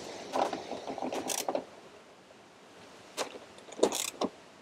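Clicks and light rattles of a battery link cable and terminal hardware being handled and fitted onto the terminals of a pair of 12-volt lithium batteries being wired in series. The clicks come in a cluster in the first second and a half, then once about three seconds in, and in another short cluster about four seconds in.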